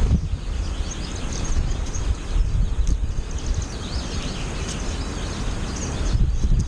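Wind buffeting the microphone in a steady low rumble, with many short high chirps from American goldfinches scattered throughout.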